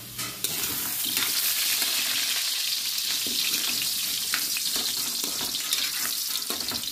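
Potato and carrot chunks frying in oil in a wok: a steady sizzle, with the spatula scraping and knocking against the pan as they are stirred.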